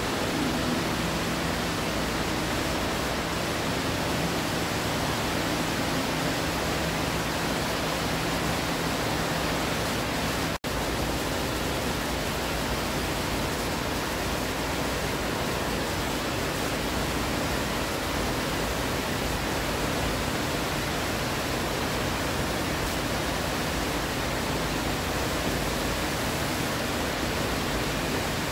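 Steady rush of water pouring from indoor water-park fountains into the pools, with a momentary break about ten seconds in.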